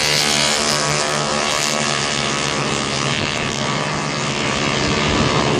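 150cc racing motorcycles running on the circuit, heard as a steady, many-toned engine drone with hiss over it.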